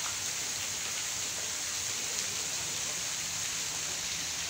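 Pond fountain splashing, a steady rain-like hiss of falling water.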